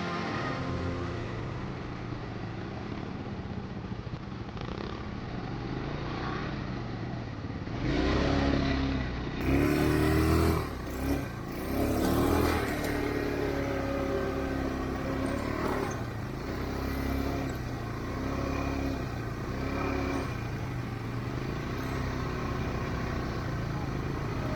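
ATV engines running, with several louder revs about a third of the way in, then settling back to a steady run.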